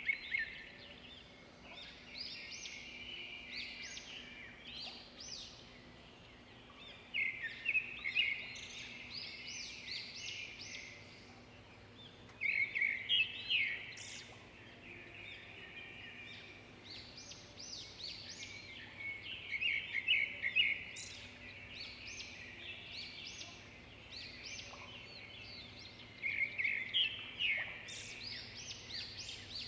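A bird singing in repeated bursts of quick, high chirping trills, one burst every few seconds, over a faint steady hum.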